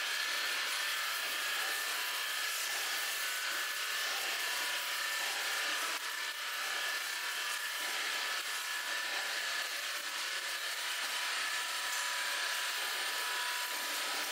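Steady machinery noise of a factory hall: an even hiss with a faint steady whine running under it.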